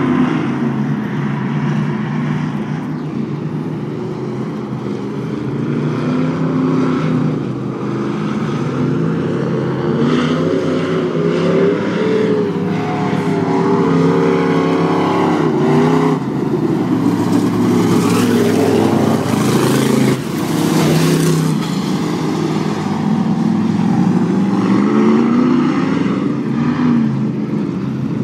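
Several dirt-track stock car engines running hard around the oval, their pitch rising and falling as they accelerate down the straights and lift for the turns, swelling louder when the cars pass nearer, loudest in the middle.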